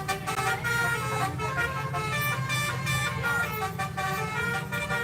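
Bus 'telolet' musical air horn playing a quick run of high tones that step from pitch to pitch, over the low steady running of the bus engine.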